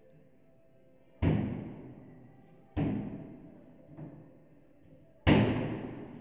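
Kitchen cabinet doors being shut: three sharp knocks about a second and a half apart, with a faint tap between the second and third. Each knock echoes briefly, and the last is the loudest.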